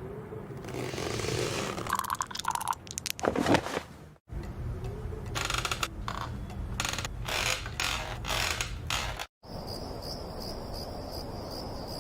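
Cartoon soundtrack sound effects in three segments with abrupt cuts between them; the last, from about nine seconds in, is a steady high cricket chirring with a few faint ticks.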